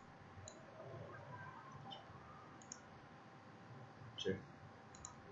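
Faint computer mouse clicks, a handful spread over several seconds, with the loudest about four seconds in.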